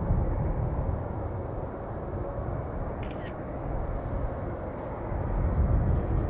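Boeing 777-300ER jet engines on short final, a steady low rumble that swells shortly before the end as the airliner flares over the runway.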